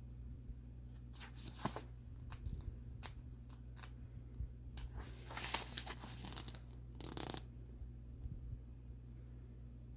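Paper pages of a comic digest rustling and crinkling as a page is handled and turned, in a run of short irregular swishes, thickest about five to six seconds in and again just after seven.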